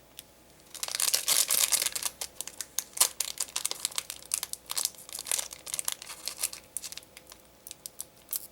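Foil trading-card booster pack being torn open and its wrapper crinkled: quiet at first, then a dense stretch of crackling about a second in, followed by scattered crinkles and ticks.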